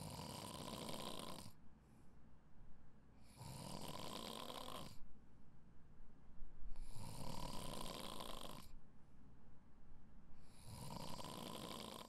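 A person snoring in a steady rhythm: four snores, one about every three and a half seconds, each lasting about a second and a half.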